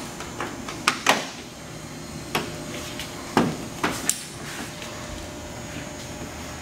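A GMC 1500's upper plastic bumper trim being pressed down and snapped into its clips and tabs: about half a dozen sharp clicks and knocks, mostly in the first four seconds.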